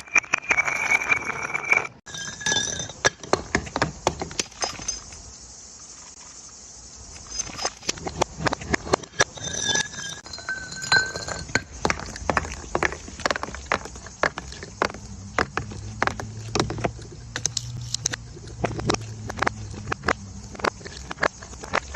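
Glass bottles breaking: a dense run of sharp cracks, clinks and tinkles of shattering glass, some with a brief ringing tone, with a short lull about five seconds in.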